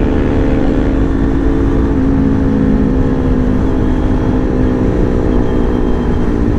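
Motorcycle engine running at a steady cruise under heavy wind rumble on the mic, its pitch sagging slightly and then climbing again near the end.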